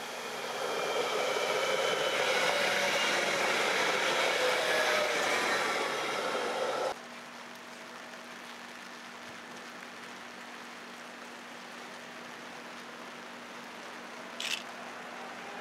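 Gothenburg M32 low-floor tram passing close by: a loud rush of running noise with several steady whining tones, cutting off abruptly about seven seconds in. After that, a quieter steady hum, with one short high chirp near the end.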